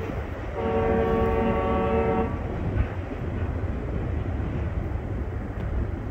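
A freight train rolling away over the rails with a steady low rumble; about half a second in, a locomotive air horn sounds one blast of nearly two seconds.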